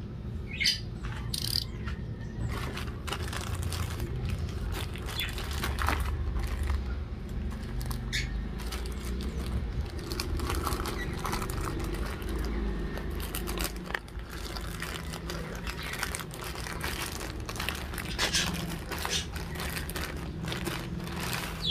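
Plastic mailer bag crinkling and crackling as it is handled, slit with a utility knife and torn open. A few short bird chirps sound over it, near the start and again near the end.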